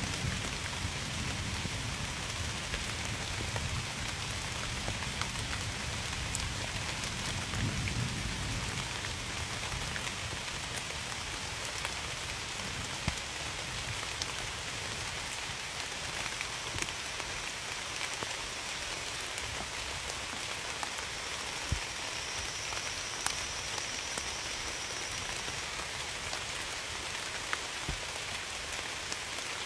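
Steady heavy rain with a low rumble of distant thunder that fades out about nine seconds in. Now and then a single louder drop hits a surface.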